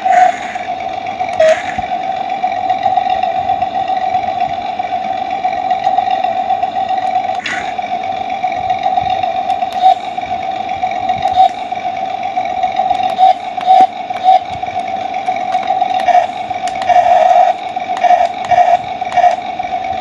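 Small electric gear motors and plastic gears of a toy remote-control excavator whining at a steady pitch as the boom and bucket move, with a few sharp clicks.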